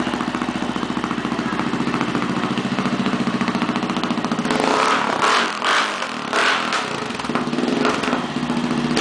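Yamaha MT-03 with a Hurricane Evolution F4 aluminium slip-on exhaust idling steadily, then blipped several times in short, loud revs from about four and a half seconds in.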